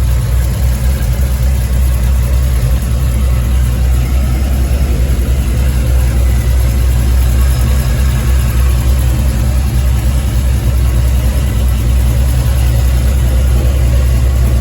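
LS-swapped 5.3-litre V8 in a 1989 box Chevy idling steadily, a loud low rumble through turndown exhaust tips.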